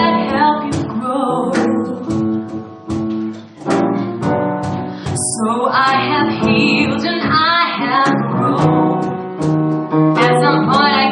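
A woman singing a musical-theatre ballad live into a microphone over instrumental accompaniment, her held notes wavering with vibrato. The singing pauses briefly about three and a half seconds in while the accompaniment carries on.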